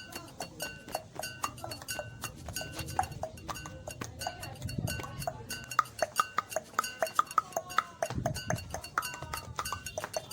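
Rapid tongue clicks made in the mouth, about four to five a second in a steady rhythm, some with a hollow, knocking ring.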